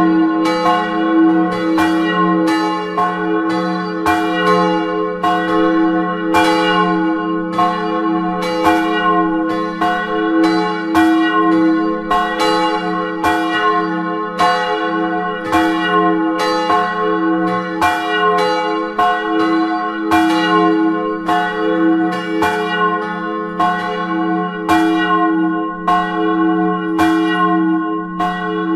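Several swinging church bells ringing together, heard close up inside the belfry: a dense run of overlapping strokes, roughly two a second, over a steady deep hum.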